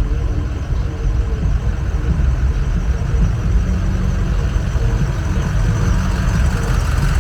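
A vehicle engine running steadily with a deep rumble; a hiss builds up slightly toward the end.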